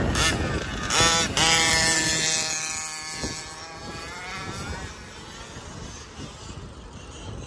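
A gas two-stroke engine in a 1/5-scale RC car revving hard off the line, with two sharp surges at the start. Its steady high note then grows fainter over a few seconds as the car pulls away.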